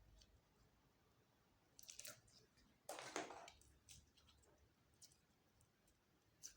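Slime being squished and mixed by hand: faint sticky clicks and short squelches, the loudest a brief squelch about three seconds in.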